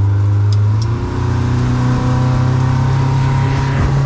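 Small motorboat's engine running under way, its steady hum rising in pitch about a second in as the boat speeds up, with water rushing past the hull.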